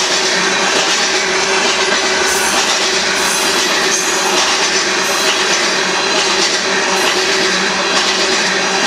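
Freight train of loaded aggregate cars rolling by, a steady loud rumble and rattle of steel wheels on the rails.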